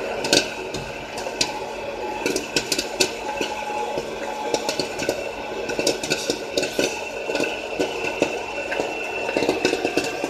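Popcorn kernels popping in irregular sharp clicks inside the metal popping chamber of a Rowe Silver Screen popcorn vending machine, over the machine's steady hum.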